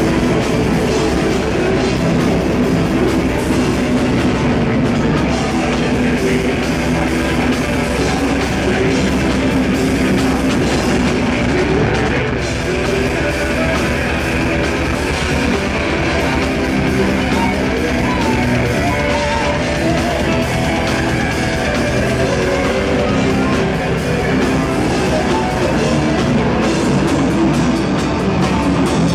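Melodic death metal band playing loud and without a break on distorted electric guitars, bass guitar and drum kit.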